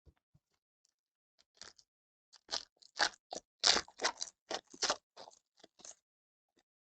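Crinkling and rustling of a trading-card pack wrapper being handled: a quick series of about a dozen short crackles over some four seconds, loudest in the middle.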